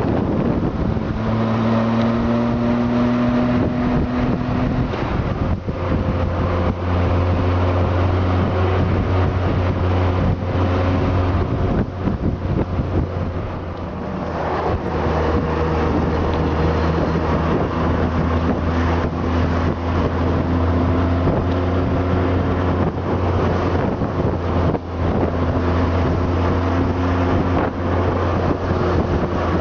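Honda Gold Wing's flat-six engine running under way, holding steady speeds with a few shifts in pitch, with wind buffeting the microphone.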